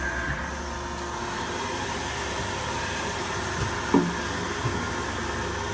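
Mori Seiki SV-503B vertical machining center running a short program: a steady machine hum with a few faint whining tones, and one brief louder sound about four seconds in.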